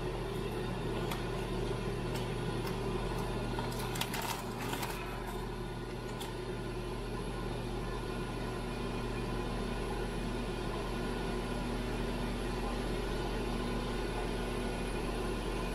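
Ninja Foodi grill running steadily as it preheats on air fry at 400 degrees: a continuous fan hum. A brief crinkle of handling comes about four seconds in.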